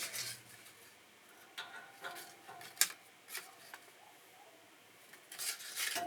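A few sharp clicks and short clattering, rustling noises, like small hard objects being handled; the sharpest click comes near the middle and a cluster of clatter comes near the end.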